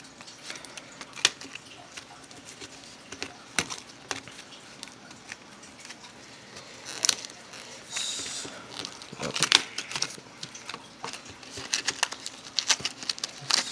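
Clear plastic blister pack of fishing hooks being pried open by hand: scattered sharp clicks and crinkles of stiff plastic, coming more often in the second half.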